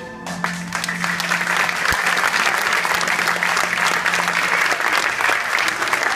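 Audience applauding, the clapping breaking out just as the music ends, with the music's last low note dying away under it.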